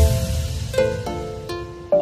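Background music: a new tune starts abruptly with a plucked string instrument, ukulele-like, picking out separate notes that ring and fade.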